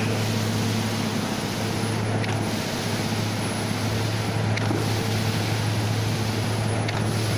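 Steady engine drone from the concrete-pouring machinery, with a faint knock about every two and a half seconds.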